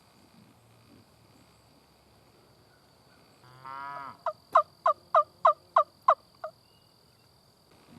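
Turkey yelping on a hunter's call: a short rattling note, then a series of about eight loud, sharp yelps, each falling in pitch, about three a second.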